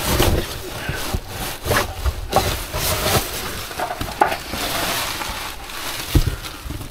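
Plastic sheeting, paper and cardboard rustling and crinkling as gloved hands rummage through rubbish in a skip, in quick irregular handfuls, with a dull knock near the end.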